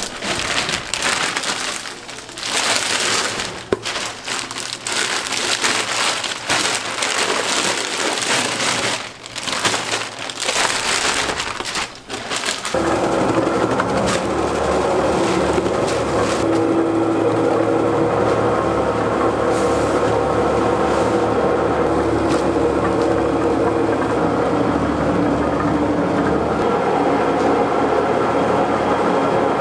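Crackling and crunching as blocks of frozen fish paste (surimi) are handled and broken up in a steel bowl. About twelve seconds in, a bowl cutter starts up and runs with a steady hum, chopping and mixing the fish paste.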